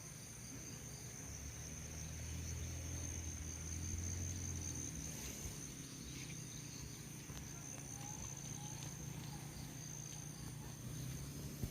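Insects chirring steadily, a high continuous shrill, over a low hum that is stronger for the first few seconds.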